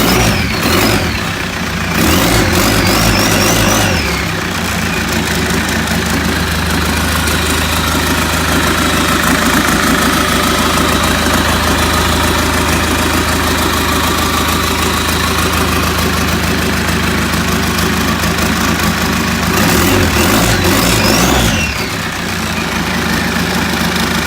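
Hyundai D4CB 2.5-litre four-cylinder common-rail turbodiesel running, with diesel clatter. It is revved up and back down briefly near the start and again near the end, and idles steadily in between.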